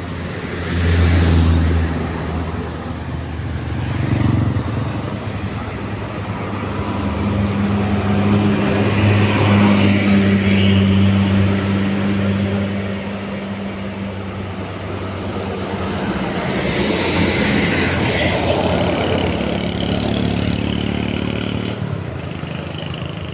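Heavy vehicles, buses among them, driving up a hill and passing one after another, their engines working under load with a steady low drone that swells as each one goes by, loudest about a second in, near four seconds, around ten seconds and around eighteen seconds.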